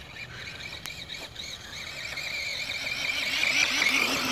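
Big radio-controlled car running at throttle, its motor and drivetrain making a high wavering whine that grows steadily louder as the car comes closer.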